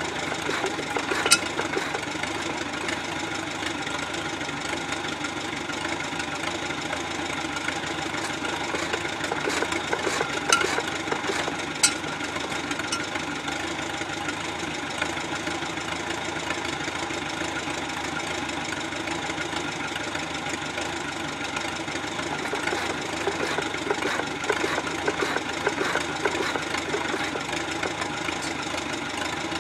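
A Farmall tractor engine runs steadily, driving a 1.5 hp Sattley hit-and-miss engine by V-belt to turn it over. Three sharp cracks cut through: one a little over a second in, and two between about ten and twelve seconds in.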